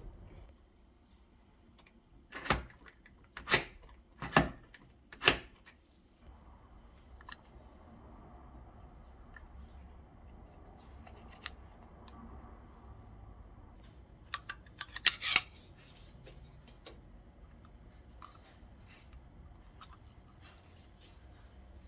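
Four sharp clicks or knocks about a second apart, then a quick cluster of clicks later on: small hardware being handled, over a low steady hum.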